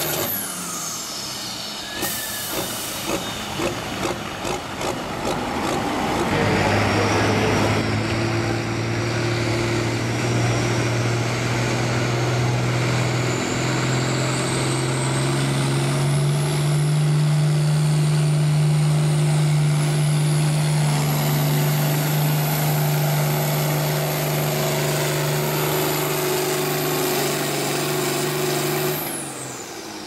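Turbocharged International farm tractor's diesel engine pulling a weight-transfer sled: a few short revs, then a steady loud full-throttle note from about six seconds in that rises slightly midway, with a high whistle slowly rising above it. It stops abruptly near the end.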